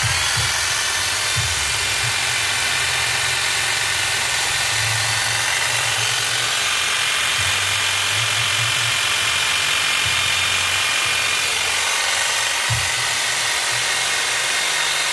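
Makita electric hedge trimmer, a Japanese-domestic 110 V, 320 W model with a 460 mm blade, running steadily at constant speed with its blades reciprocating.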